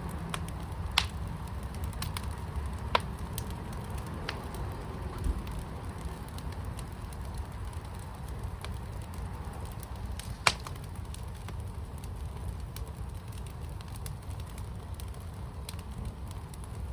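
Fire in a firepit burning with a steady low rumble and a few sharp crackling pops, the loudest about ten seconds in.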